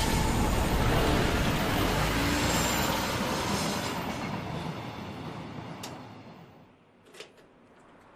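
A train running by, a loud rumble of wheels with faint high squealing tones, fading away over several seconds. A couple of sharp clicks come near the end.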